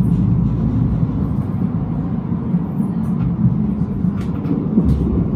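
Tram running along the track, heard from inside the car: a steady low rumble, with a few light clicks in the second half.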